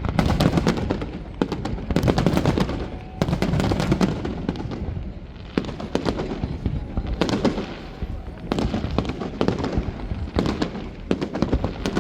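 Fireworks display: aerial shells bursting and crackling, the bangs coming in close clusters every second or two.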